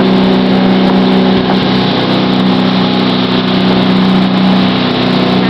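Ski boat's engine running steadily at speed, a constant drone, with the rushing hiss of spray thrown up by a barefoot skier's feet skimming the water alongside.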